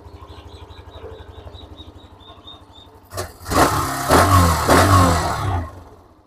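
Hero Xtreme 125R's single-cylinder 125cc engine idling with an even exhaust pulse. About three seconds in it is revved in a few throttle blips for roughly two seconds, giving a smooth, bassy exhaust note, then it drops back to idle.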